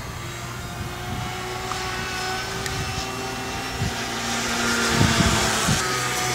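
Park 480 brushless electric motor driving a three-blade 10×5 pusher propeller on an RC plane in flight: a steady multi-pitched whine that drifts a little in pitch and grows louder over the first five seconds as the plane comes closer. A few gusts of wind hit the microphone about five seconds in.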